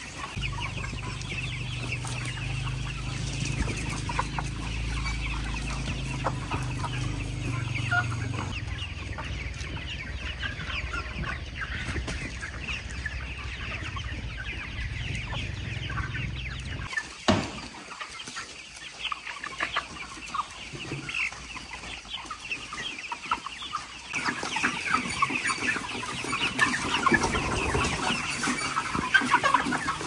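A flock of hens clucking, many short calls overlapping. A low steady hum lies underneath for the first half and stops abruptly a little past the middle.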